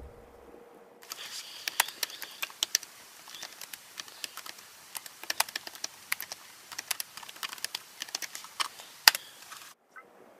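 Typing on an Acer laptop keyboard: a quick, irregular run of key clicks, with one louder key strike near the end, then the typing stops abruptly.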